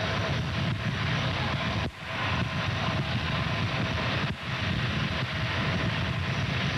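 Steady jet aircraft roar with a faint whine running through it, dipping briefly twice.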